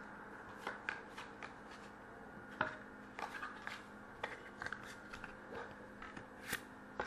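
Trading cards being flipped through by hand: short, irregular clicks and rustles as each card is slid off the stack.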